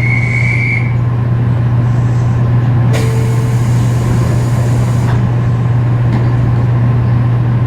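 Running sound inside a JR Kyushu 813 series electric train car with a Toshiba GTO inverter drive. A steady deep low hum dominates: the heavy bass rumble that the recordist suspected, without being sure, was an abnormal noise. A high whine ends about a second in, and a hiss lasts about two seconds from around three seconds in.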